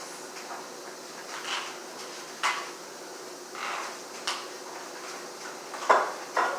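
A series of sharp clicks and knocks as objects and tableware are handled on a table, the loudest knock near the end.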